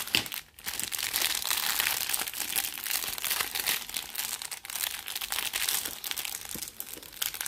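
Clear plastic packaging bag crinkling as it is handled and opened by hand, a dense run of small crackles.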